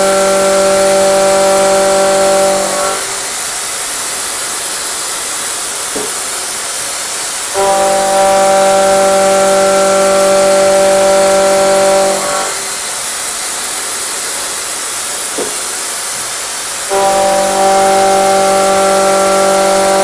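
Sandvik Coromant R300 round-insert milling cutter cutting grade 350 steel plate on a CNC mill. A steady pitched hum with several overtones sounds while the cutter is in the cut, and it drops out twice for a few seconds between passes over a constant hiss.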